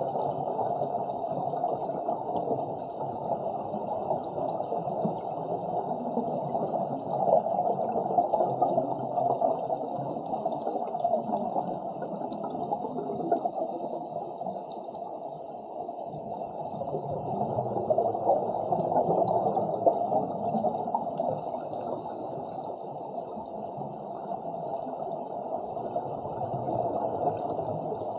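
Underwater bubbling and gurgling of scuba divers' exhaled breath from their regulators, heard muffled through the camera's waterproof housing. It rises and falls in slow swells.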